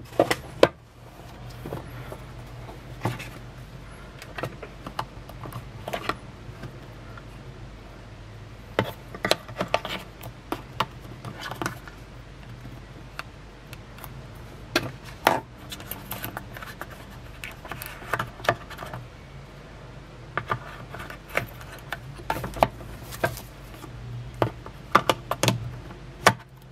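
Hands unpacking an iPhone box: irregular clicks, taps and crinkles of plastic wrap, the cardboard box and its inner tray, with a low steady hum underneath.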